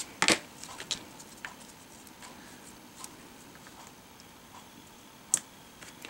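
Quiet handling of craft materials on a cutting mat: a sharp click near the start and another about five seconds in, with a few small taps and rustles between, as a cut piece of fun foam is pressed onto a card.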